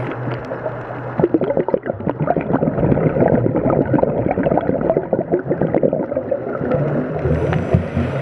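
Scuba diver's exhaled regulator bubbles gurgling underwater, a dense crackling, popping rush of bubbles.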